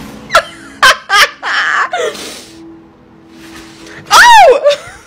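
Plastic bag crinkling in sharp bursts as a cat thrashes inside it, over background music and laughter, with a loud cry about four seconds in that rises and falls in pitch.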